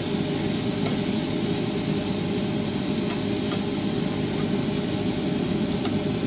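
Beef sizzling on a Korean BBQ tabletop grill, a steady hiss over a steady low rumble, with a few faint clicks of metal tongs turning the meat.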